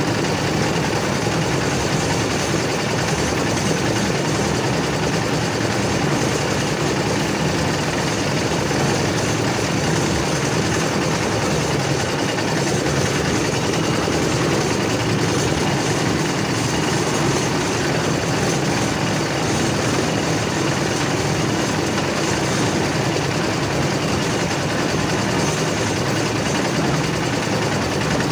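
Concrete mixer's engine running steadily at a constant speed.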